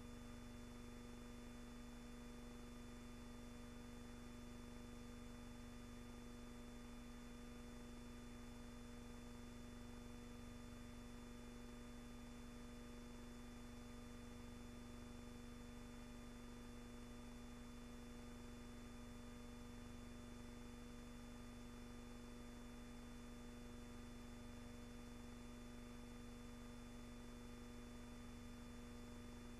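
Near silence: a steady low hum with faint hiss, unchanging throughout, with no gunfire or explosions heard.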